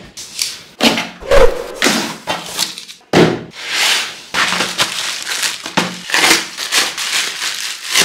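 A plastic courier mailer bag being torn open and crinkled by hand: a series of irregular rips and crackling rustles with a few sharp snaps.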